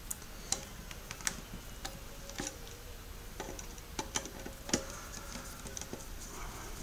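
Light, scattered clicks and ticks of a hand screwdriver turning a small screw into a kettle element's plastic mounting, one every half-second to a second.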